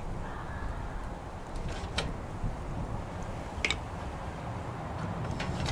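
Wood fire crackling, with a few sharp pops (about two seconds in, near four seconds and again near the end) over a steady low rumble.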